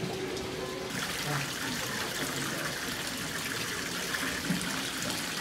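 Water from a stone fountain spout splashing steadily into a small pond, starting about a second in.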